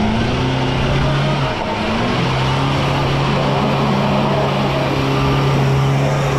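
Four-wheel drive's engine held at high, steady revs under load while it works at a steep dirt obstacle, over a rushing haze of tyre and dirt noise. The revs sag briefly about a second and a half in, then pick back up and hold; the vehicle is struggling for grip.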